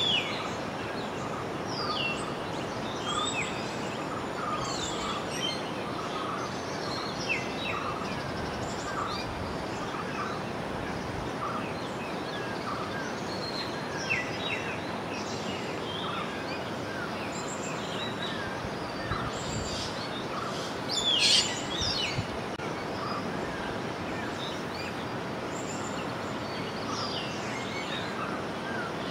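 Many small birds chirping and calling over a steady rushing background of flowing river water, with a short lower note repeating every second or so. A louder burst of calls comes about two-thirds of the way through.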